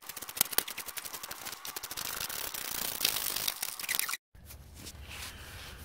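Ratcheting wrench clicking rapidly as it spins a 17 mm nut off the rear axle bushing bolt. The clicking stops abruptly about four seconds in.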